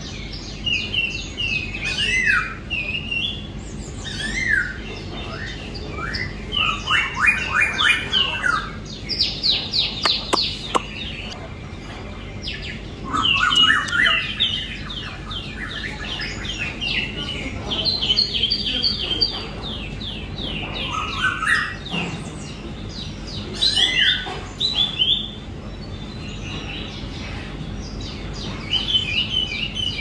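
Small caged birds singing: repeated phrases of fast chirps and trills, each lasting a second or two, with short pauses between, over a steady low hum.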